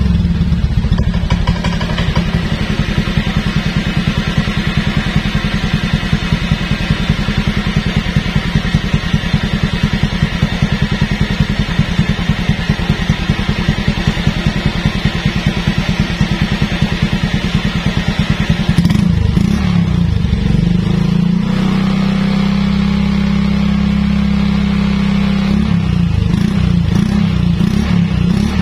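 Automatic scooter's four-stroke engine running through a Suzuki Satria FU four-stroke silencer, with an even pulsing exhaust beat. About two-thirds of the way in the throttle opens and the engine runs faster and steadier, turning the rear wheel, then the beat wavers again near the end.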